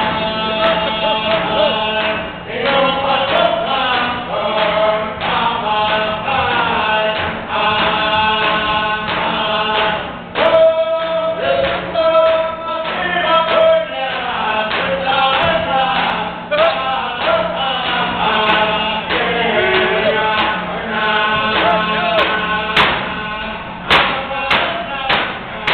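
A group of singers chanting a Yup'ik dance song, with male voices prominent, to a steady beat of handheld frame drums struck with sticks. The drumbeats grow sharper and more prominent near the end.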